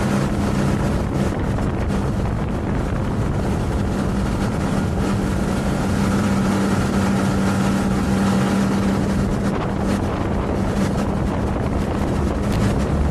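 Motorboat engine running steadily at speed with a constant hum, mixed with rushing water and wind on the microphone.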